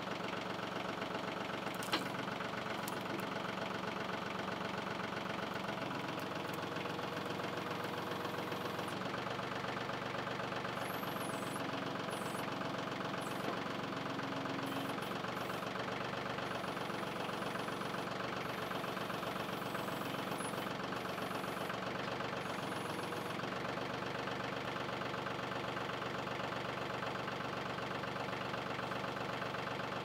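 TYM 2515 compact tractor's diesel engine running steadily while the backhoe attachment's hydraulics raise and extend the boom, with a single click about two seconds in.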